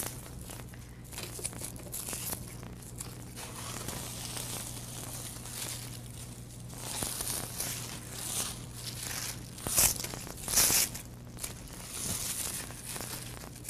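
Crinkling and rustling of twisted gift-wrap ribbon scraps being handled and cut with scissors, with a few louder, sharper crinkles about three-quarters of the way through.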